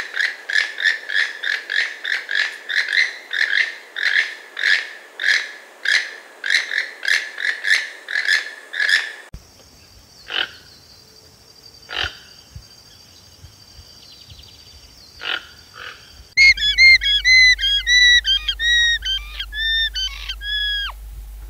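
Toucan calling, a fast run of croaking calls about two a second for the first nine seconds, then a few single sharp calls spaced well apart over a steady high whine. Near the end a vicuña gives its shrill, quavering call, a run of quick repeated notes.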